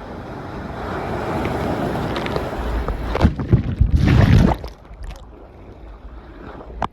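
Ocean wave surging in and breaking over a swimmer: rushing surf that builds for about four seconds, with a cluster of sharp splashes as it hits, then falls away suddenly.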